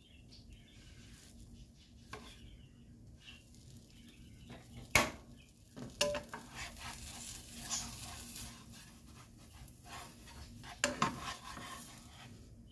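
Silicone spatula scraping and tapping in a non-stick frying pan as a grilled cheese sandwich is pushed about and turned, over a faint sizzle. A sharp knock about five seconds in is the loudest sound, with smaller knocks near six and eleven seconds.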